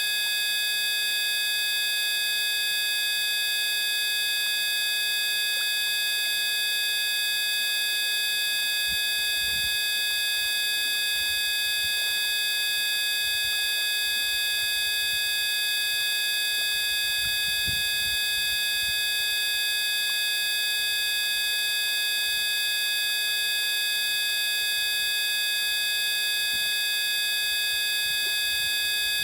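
A steady buzzing drone made of many fixed tones, high and low, holding at one level without change. Faint low rumbles come and go under it from about a third of the way in until past the middle.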